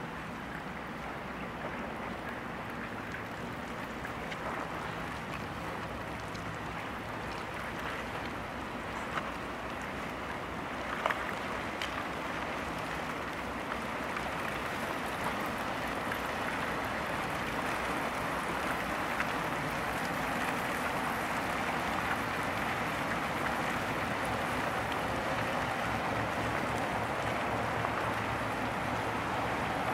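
Great Lakes freighter passing close through icy water: a steady rushing, churning noise that slowly grows louder as the stern comes by, with a couple of short sharp cracks about a third of the way in.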